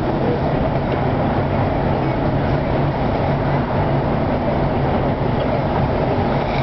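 Steady road noise inside a moving car's cabin: an even rumble of tyres and engine with a low drone.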